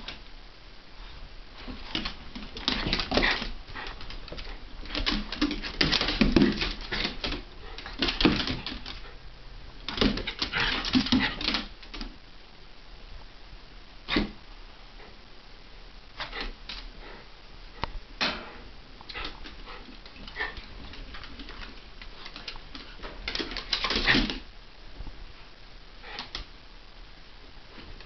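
A Havanese and a Jack Russell terrier play-fighting: dog vocalising and scuffling, with claws clicking on a hardwood floor. It comes in several bursts with quieter gaps between them.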